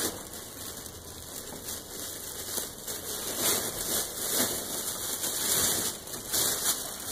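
Wort boiling in a large aluminium brew kettle over a gas burner: a steady hissing, bubbling noise that grows louder from about three seconds in.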